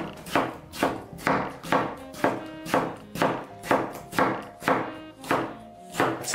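Chef's knife slicing through a tomato, the blade tapping a plastic cutting board about twice a second in an even rhythm.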